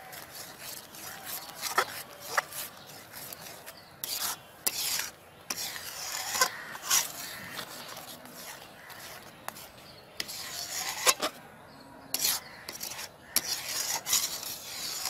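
Metal spatula scraping and stirring thick pudding in a metal pan: irregular rasping strokes against the pan, with a few sharp clicks.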